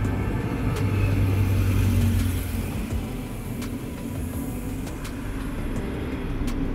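A train running close by: a steady low engine drone and rumble, with the drone dropping away about two and a half seconds in, and a few sharp clicks over the top.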